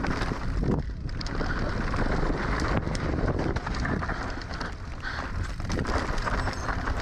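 Mountain bike riding down a trail: wind rushing over the microphone and tyres rolling over loose dirt and gravel, with frequent small knocks and rattles from the bike.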